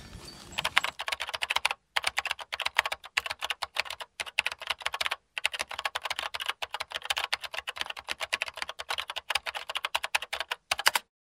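Fast, dense clicking like typing on a keyboard, broken by a few brief sudden gaps and cut off abruptly near the end.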